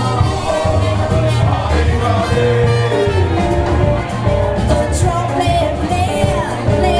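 Live brass band playing with a woman singing lead over trombones and saxophone, with a steady low bass line underneath.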